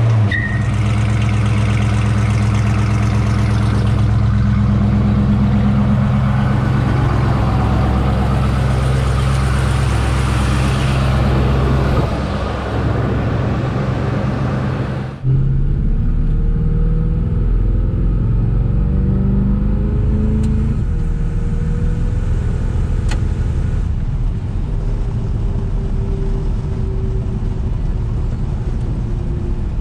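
1972 Chevrolet C10 pickup driving, its engine running steadily under road and wind noise. After a sudden change about halfway, the engine pitch climbs as the truck accelerates.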